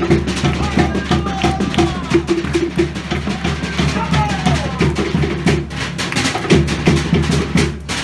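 Cook Islands drumming: a group of drums beating a fast, steady rhythm with sharp wooden knocks.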